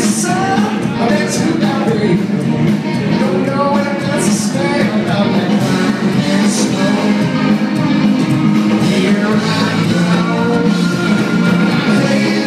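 Live rock band playing: electric guitars, bass guitar and a drum kit, with cymbal hits cutting through several times.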